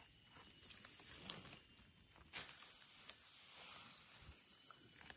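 Faint rustling and light steps in leaf litter. About two seconds in, an insect suddenly starts a steady, high-pitched drone.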